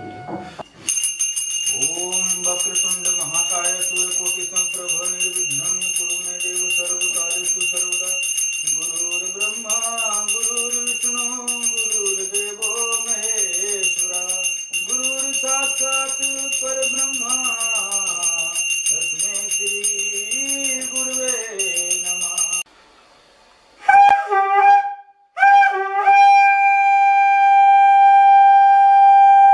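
A brass puja hand bell rung continuously for about twenty seconds while a man chants, his voice rising and falling beneath the ringing. Then a conch shell is blown: two short tries, then one long steady note.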